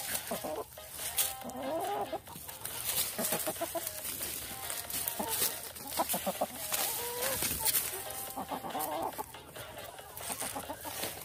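Bare hands scraping and scooping dry soil around cassava roots, with chicken-like clucking several times over the scratching.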